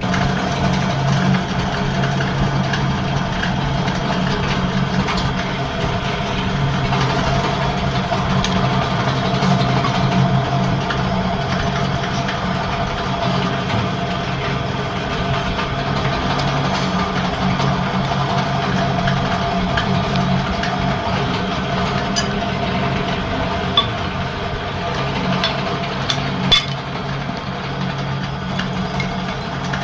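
An engine idling steadily, with a few sharp metallic clicks near the end.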